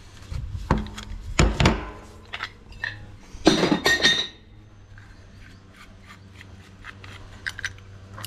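A brass hose tap and an adjustable wrench being handled on a wooden table as the tap headwork is loosened and pulled out of the body. There are metallic knocks and clinks about a second in, a louder scraping clatter with a brief ring around three and a half seconds, then light ticks of parts being handled, over a steady low hum.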